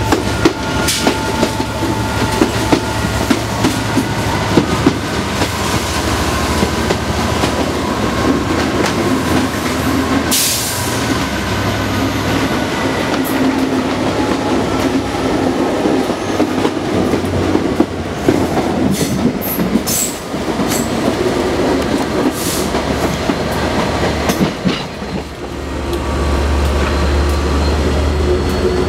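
Class 67 diesel locomotive's EMD two-stroke V12 engine working hard as it propels the train, heard close up from the next vehicle. Wheels click over rail joints and squeal thinly on curves throughout. A brief rush of noise comes about ten seconds in, and the engine note grows louder near the end.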